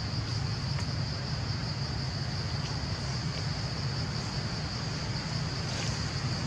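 Insects droning steadily at a high pitch in forest, over a low steady rumble, with a few faint ticks.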